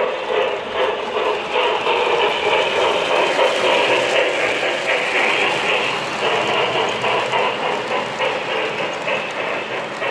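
O gauge model freight train rolling past on three-rail track: a steady rumble of metal wheels with fast, uneven clicking over the rail joints, loudest as the cars pass closest, a few seconds in.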